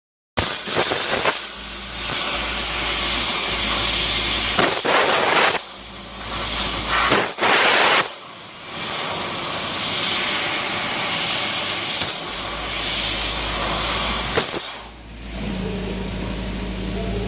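Fiber laser cutter cutting 2 mm aluminium sheet: a loud hiss of assist gas through the cutting nozzle, starting about half a second in and broken by several short pauses between cuts. Near the end the hiss stops and a quieter, steady machine hum with a low tone remains.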